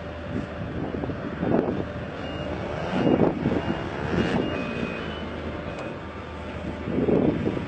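Steady low machinery hum with gusts of wind buffeting the microphone, and a few faint short high beeps in the middle.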